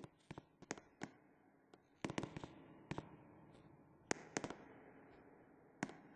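A series of sharp, irregular cracks or pops, some coming in quick clusters of two or three, with a faint lingering haze after the louder ones.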